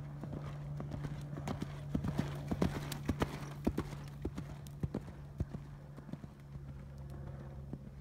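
Hoofbeats of a cantering horse on sand arena footing. The strikes grow loudest as the horse passes close by about two to four seconds in, then fade as it moves away.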